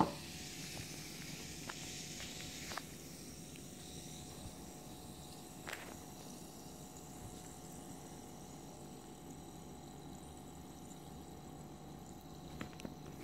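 Citro-Soda effervescent granules fizzing in a glass of water: a faint, steady fizz with a few small clicks, brighter for the first three seconds or so.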